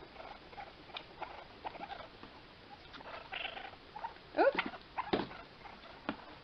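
Baby raccoons making soft cries while nursing from a bottle, among small clicks and scuffles, with two short rise-and-fall cries about four and a half seconds in that are the loudest sounds.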